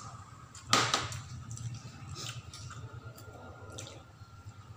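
A person eating by hand close to the microphone: soft wet chewing and squishy mouth and finger noises, with one sharper, louder click about a second in and a few fainter clicks after.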